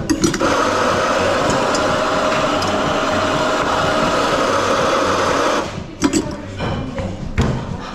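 Espresso grinder motor grinding a dose of coffee beans into a portafilter: a loud steady grind that starts just after the beginning and cuts off suddenly after about five and a half seconds. A few sharp knocks follow.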